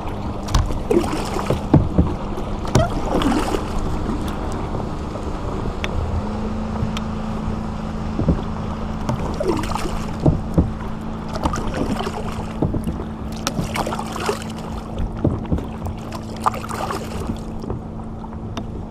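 Kayak paddling: a paddle dipping and splashing into the water in strokes every second or two, with a few short knocks, over a steady low hum.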